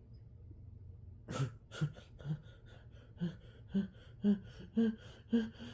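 A person's quick, voiced gasping breaths building toward a sneeze. About a second in, roughly eight short catches come about half a second apart, each a little higher in pitch than the last.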